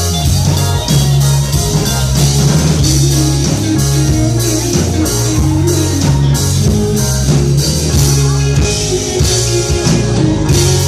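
Live rock band playing an instrumental passage: electric guitar, bass and drum kit with a steady beat.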